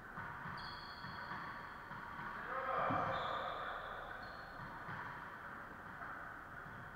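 Faint, echoing ambience of an indoor racquetball court between rallies: soft murmured voices that swell about three seconds in, a few soft knocks, and some thin high squeaks.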